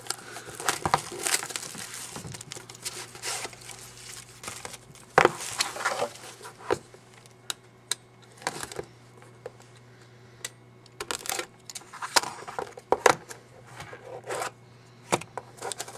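Sealed trading-card box and packs being unwrapped by hand: irregular crinkling and tearing of the wrapper with scattered sharp rustles and handling clicks. A faint steady low hum runs underneath.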